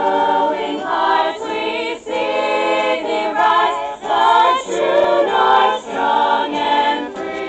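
A group of voices singing together as a choir, holding long notes with brief breaks about every two seconds.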